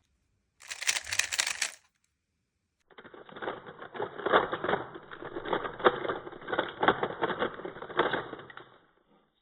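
A 3x3 speedcube being turned fast with finger tricks: the plastic layers make rapid clicking and clacking. There is a short burst of turns about a second in, then a longer run of quick turns from about three seconds in that ends near the close.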